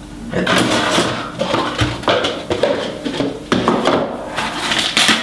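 Unboxing handling noise: a flash's carrying case and packing being handled, with rustling, scraping and several light knocks.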